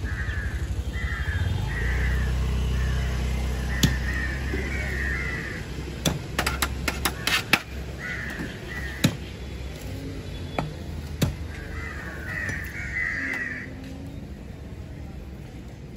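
A cleaver chopping through fish onto a wooden block in sharp single knocks, with a quick run of chops about six to seven and a half seconds in. Crows are cawing in several bouts over it, and a low engine drone fades out in the first five seconds.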